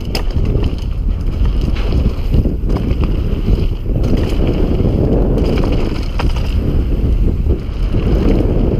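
Wind buffeting an action camera's microphone as a downhill mountain bike rolls fast over a dirt trail, with steady tyre rumble and frequent short rattles and knocks from the bike over rough ground.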